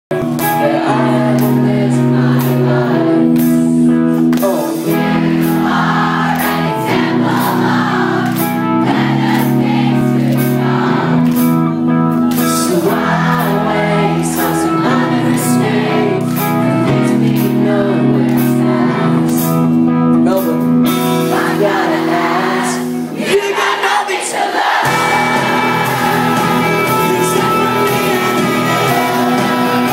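Rock band playing live over a venue PA, with lead vocals, distorted guitars, bass and drums. About three-quarters of the way through, the bass drops out for a second or two, then the full band comes back in.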